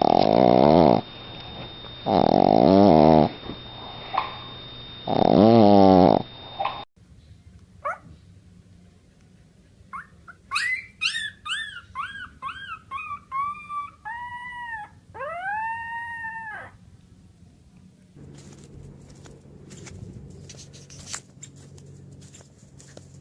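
Dogs howling: three loud, wavering howls about two seconds apart, then a run of short rising-and-falling howling yips that grow longer toward the end, followed by faint light clicking.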